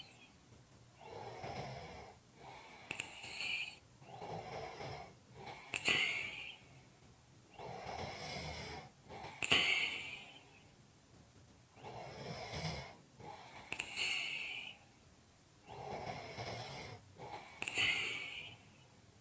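A person snoring in slow, regular breaths, about five in all, one roughly every four seconds. Each breath is a low snore followed by a shorter, louder breathy hiss, with quiet pauses between the breaths.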